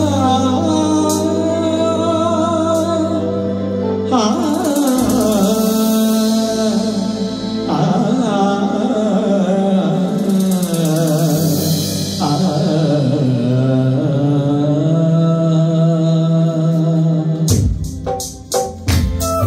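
A man sings a devotional song into a handheld microphone, his voice sliding and wavering in pitch over sustained low keyboard chords that change every few seconds. Near the end the singing stops and a few sharp clicks sound.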